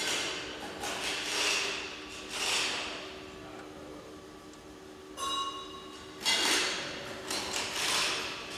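Workshop handling of metal parts: a series of short scraping or sliding noises, with a single ringing metallic clink about five seconds in.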